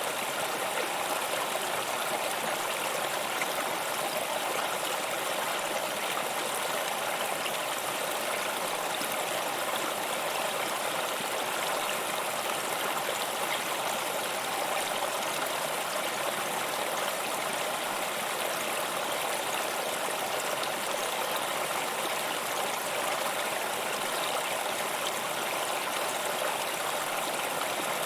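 Waterfall: a steady, unbroken rush of falling water that stays even throughout.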